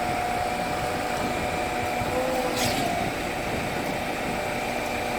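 Volvo truck-mounted 52-metre concrete pump running steadily with a whine, giving one sharp clunk about halfway through as the pumping stroke changes over, a clunk that comes back about every four seconds.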